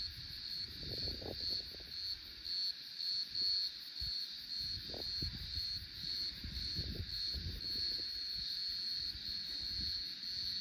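Insects trilling steadily at a high pitch with a slight pulse, over irregular gusts of wind buffeting the microphone.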